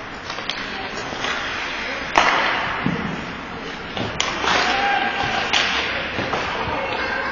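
Ice hockey play: skates scraping on the ice under several sharp clacks and thuds of sticks, puck and boards, the loudest about two seconds in, with players' voices in the background.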